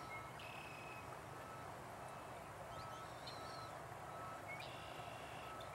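Faint, evenly spaced beeping of a distant vehicle's reversing alarm, with birds calling now and then over a steady low background noise.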